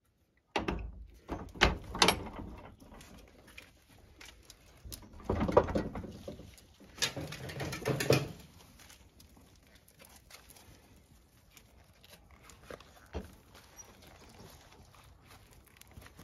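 Puppies scampering and scuffling on concrete, with light pattering and tapping. There are several louder knocks and rustles in the first half, then only faint scattered taps.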